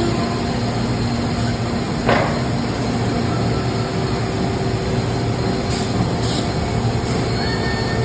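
Biesse Skipper 130 CNC machine running with a steady mechanical hum, a short sudden sound about two seconds in and brief high hisses about six seconds in.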